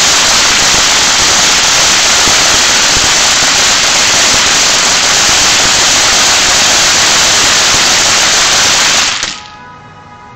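Ground fountain firework spraying sparks with a loud, steady rushing hiss, which cuts off abruptly about nine seconds in as the fountain burns out.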